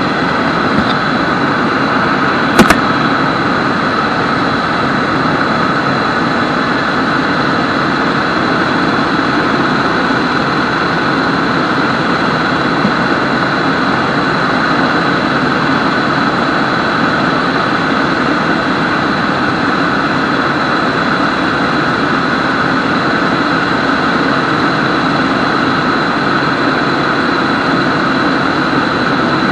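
Helicopter in flight heard from inside the cabin: a loud, steady din of engine and rotor with a steady high whine over it. A single sharp knock about two and a half seconds in.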